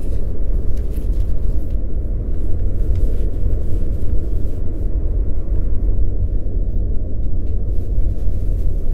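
Loud, steady low rumble with no pitch or rhythm, and a few faint ticks over it.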